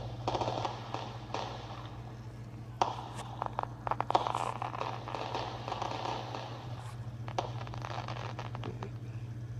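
Small consumer fireworks going off: a hissing, crackling spray with several sharp pops, the loudest about three and four seconds in.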